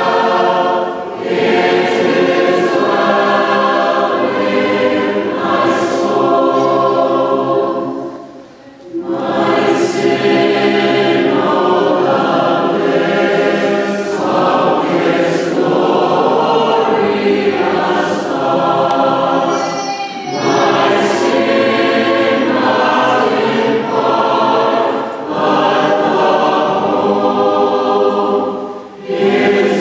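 High school chamber choir singing in full harmony, holding sustained chords. There is a short break between phrases about eight seconds in and another near the end.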